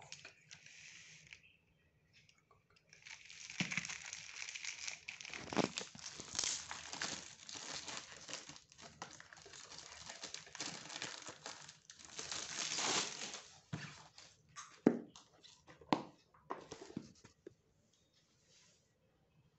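Plastic shrink-wrap crinkling and tearing as it is pulled off a stack of paperback books, followed near the end by a few sharp knocks as the books are set down on a tile floor.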